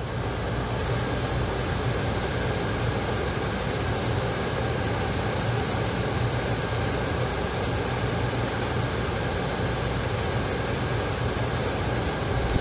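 A car being driven: steady engine and road noise, heaviest in a low rumble.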